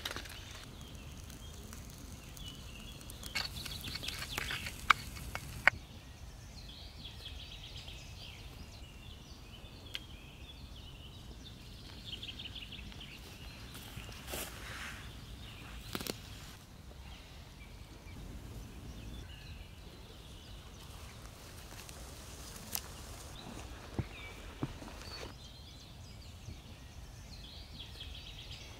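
Forest ambience: birds chirping and singing in short phrases now and then over a steady low background noise, with a few sharp clicks scattered through.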